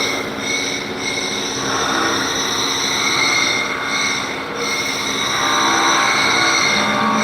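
CNC vertical machining centre running, a steady high-pitched whine over dense machine noise.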